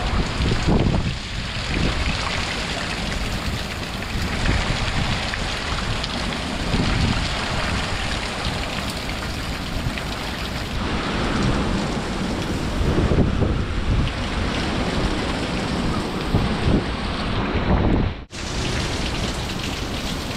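Heavy hurricane rain pouring onto a flooded yard and street, with gusting wind swelling in low rumbles every few seconds. The sound drops out for a moment near the end.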